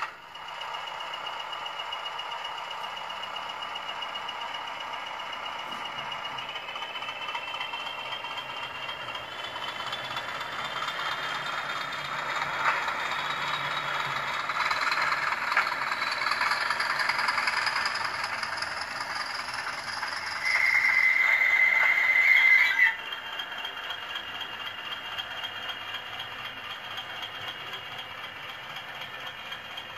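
Bachmann 00 gauge Class 20 model locomotive's DCC sound decoder playing a recorded diesel engine through its small onboard speaker, with a rattly running sound. The engine builds with a rising whine from about ten seconds in. A little after twenty seconds a horn sounds for about two seconds, cutting off sharply, and the engine runs on.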